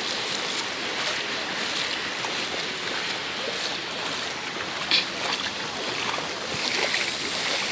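Shallow sea surf washing over a flat sandy beach, a steady hiss of water, with feet wading and splashing through it; one sharper splash about five seconds in.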